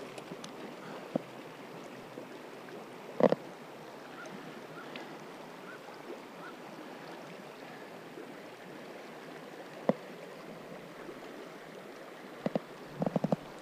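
River water rushing over riffles, a steady hiss. A few sharp clicks and knocks from handling close to the microphone cut through it, the loudest a double knock about three seconds in and a quick cluster near the end.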